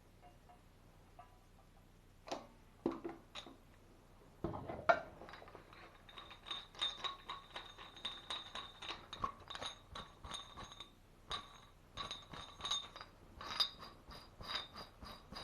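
Small metal valve parts clinking and tapping against each other as they are handled and fitted together, with a light ringing to some of the knocks. A few separate clicks come first, then a busy run of taps from about four seconds in.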